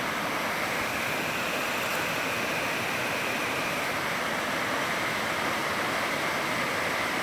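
Small forest waterfall splashing down, a steady rush of falling water.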